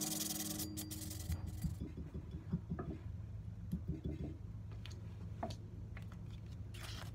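Background music fades out within the first second or two, leaving quiet handling sounds: a rag rubbed over a steel axe head clamped in a vise, with a few light clicks and a steady low hum.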